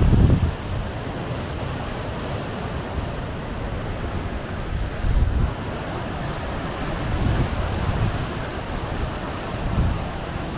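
Strong storm wind gusting over and buffeting the microphone, a low rumbling rush that surges several times.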